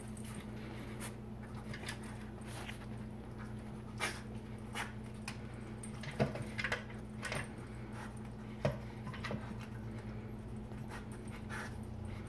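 A dog eating kibble from a plastic slow-feeder bowl: scattered clicks and knocks as her nose and teeth work the food out of the bowl's ridges, over a steady low hum.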